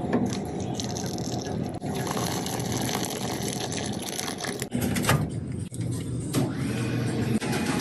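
Water pouring steadily into a container, as when filling a cup.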